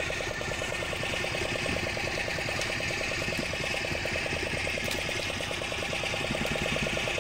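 A small boat engine idling with a rapid, even beat, under the splashing of caged fish thrashing at the surface as they take feed.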